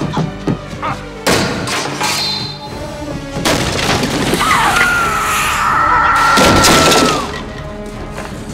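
Tense film score with crashes of splintering wood: a few thuds and a sharp crash in the first second and a half, then a dense run of smashing from about three seconds in. Over the smashing, a long high shriek is held for nearly three seconds before it drops away.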